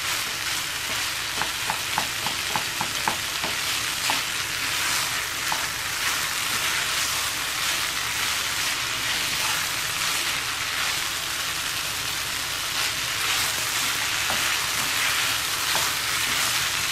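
Cooked rice sizzling in a nonstick kadai as a spatula stirs it through the tamarind pulp, a steady frying hiss with the scrape of the stirring. A quick run of light clicks comes about one to three seconds in.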